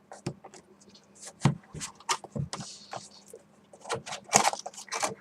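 Earbud packaging being handled and opened: irregular clicks, crinkles and scrapes of plastic and cardboard.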